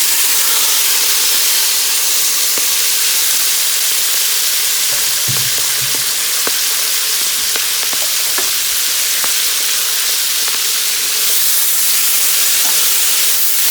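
Chopped cabbage sizzling loudly in a pot of hot olive oil and fried pork fat, a steady hiss. There are scattered light clicks and a low thump about five seconds in.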